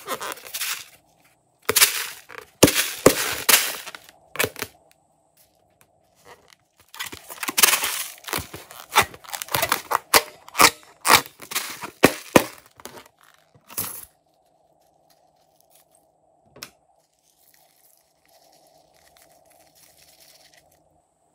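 Crackling, crinkling handling sounds from a slime-filled rubber balloon being squeezed and rubbed in the hands. They come in three bursts, the longest in the middle, and fade to a few faint sounds near the end.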